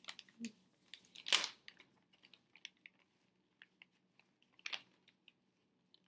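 A plastic pouch of freeze-dried treats being pulled open and handled: a sharp rip about a second in, then light crinkling and small clicks as a treat is taken out, with another short rustle near the end.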